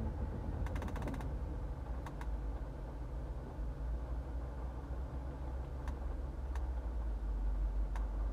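Mazda 3 climate-control temperature dial clicking through its detents as it is turned down: a quick run of about ten clicks, then a few single clicks. Under it runs the car's steady low hum.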